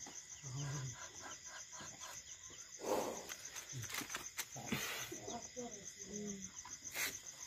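A cricket chirps steadily in a fast, even pulse, with occasional faint rustles and knocks and low murmured voices.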